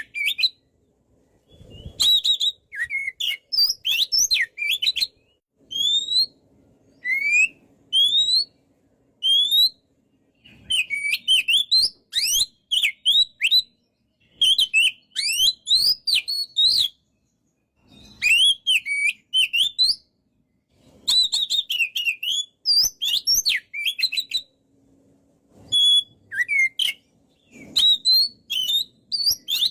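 Oriental magpie-robin singing: phrases of quick, high rising and falling notes and rapid trills, each lasting a second or few, broken by short pauses.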